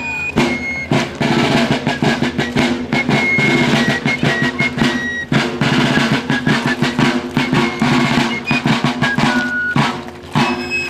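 Fife and rope-tension field drum playing a march: a high fife melody over rapid drum rolls and strokes.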